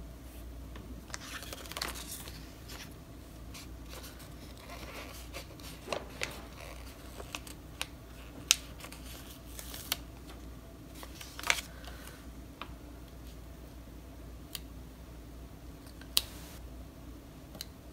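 Paper and sticker sheets being handled: soft rustling and scraping with scattered sharp clicks and taps, the loudest a few isolated clicks around the middle and near the end.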